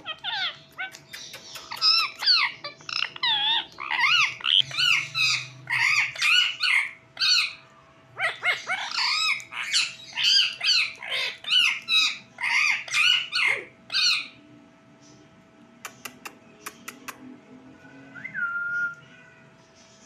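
Indian ringneck parakeet calling in a fast run of short, loud pitched calls, with a brief pause about eight seconds in, stopping around fourteen seconds. A few sharp clicks follow, then a short whistle near the end.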